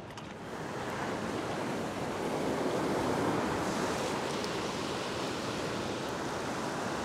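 Ocean surf washing across a rock platform, a steady rushing that grows louder about a second in and is loudest around the middle.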